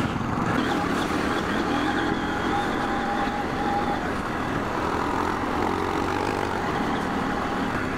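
Parallel-twin adventure motorcycle ridden along a dirt track, its engine running steadily with no change in throttle.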